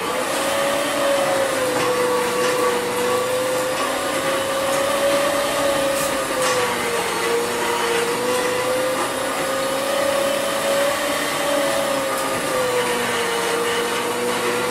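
A motor-driven machine switches on abruptly and runs loud and steady, with a humming pitch that wavers slightly up and down over a noisy whir.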